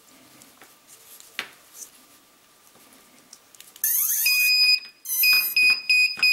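FPV quadcopter's alarm buzzer beeping loudly at power-up, a steady high tone broken by short gaps, starting about four seconds in after a brief rising chirp. Before it come faint clicks of the battery lead being plugged in.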